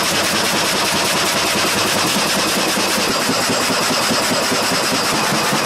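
Multi-blade gang saw running, ripping a squared log into several boards as its feed rollers push it through: a loud, steady machine noise with a fine, even rhythm, which shifts slightly in its low end about three seconds in.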